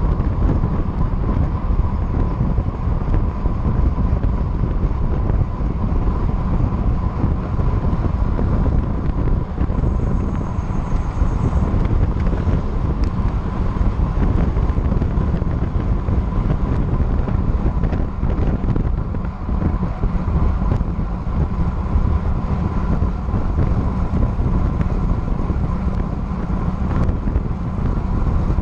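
Wind buffeting hard on a bike-mounted action camera's microphone at about 30–36 mph in a road-bike paceline, mixed with tyre and road noise. A faint steady whine runs underneath.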